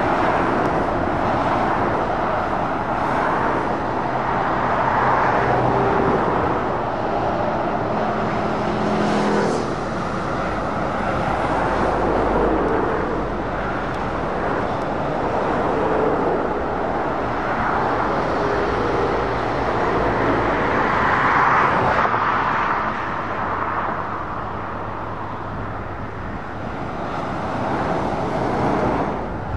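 Dual-carriageway traffic going by: heavy lorries and cars pass one after another, with diesel engines running and tyre noise on the road. The sound swells each time a vehicle goes past.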